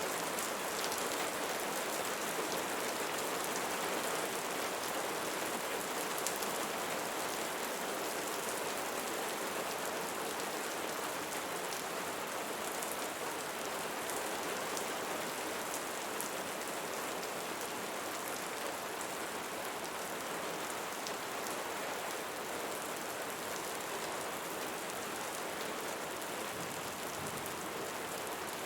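Steady rainfall: a dense, even hiss of drops with faint separate ticks, holding at one level throughout.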